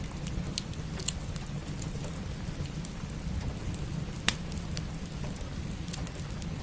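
Steady rain falling together with a crackling wood fire: a constant hiss and low rumble, with scattered sharp pops and one louder crack about four seconds in.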